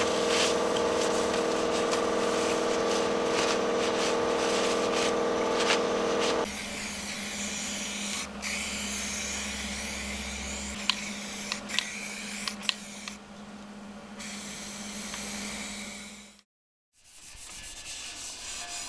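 Aerosol spray-paint can hissing as a welded steel frame is painted, over a steady hum that is louder and carries several pitches in the first third; a few sharp clicks come midway. Near the end, an abrasive pad rubs over the painted metal.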